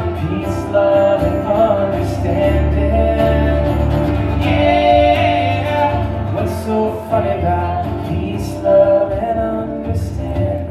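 Live folk music: a voice singing over acoustic instruments, played on stage and picked up from out in the audience.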